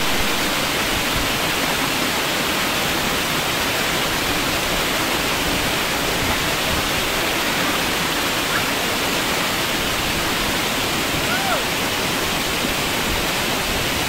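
Waterfall rushing steadily close by, an even wash of falling water at constant level. Two faint, brief calls rise out of it partway through.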